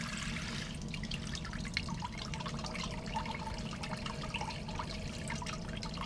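Water spraying from the shower head of a Companion Aqua Cube portable gas hot water shower and splashing and dripping, with a steady low hum underneath.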